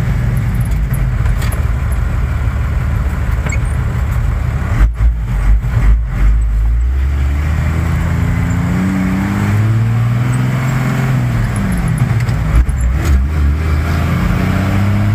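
1990 Dodge pickup's 5.9 Cummins turbo diesel with a straight-pipe exhaust, heard from inside the cab while driving. The engine note climbs under acceleration about eight seconds in, holds, then drops briefly. A run of heavy low thuds comes about five to seven seconds in.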